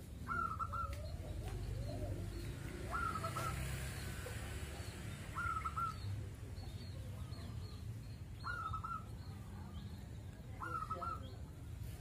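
Caged zebra dove (perkutut) cooing its short rolling song phrase, repeated five times at intervals of about two and a half to three seconds.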